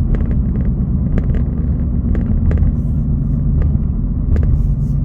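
Car driving, with a steady low road and engine rumble and a few scattered light clicks.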